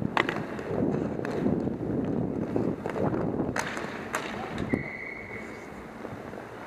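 Roller hockey play: a constant rumble of skate wheels on the rink surface, broken by several sharp clacks of sticks and puck. A brief high steady tone sounds for about a second just before the five-second mark.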